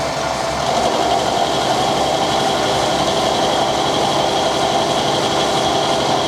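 Metalworking machine tool running steadily while taking a light cut off the jaw of a steel spanner.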